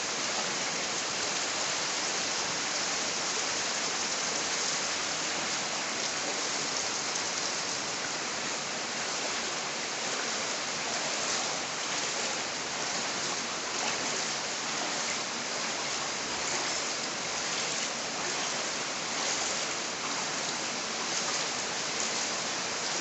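A steady, even hiss of water noise, with no distinct splashes or knocks.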